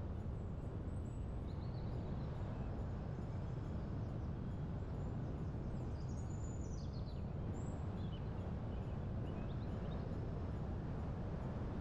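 Birds chirping and whistling in short calls over a steady low rushing noise, with the clearest falling whistles about halfway through.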